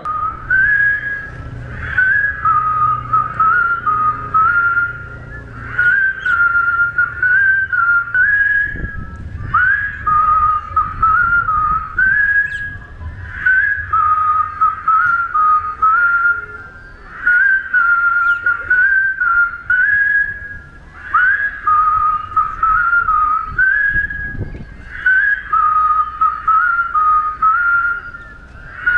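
A large crowd whistling together, a simple tune in short phrases of about four seconds, repeated over and over.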